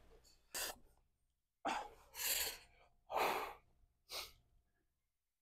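A lifter breathing hard under effort: five short, sharp, noisy breaths about a second apart, the middle two a little longer.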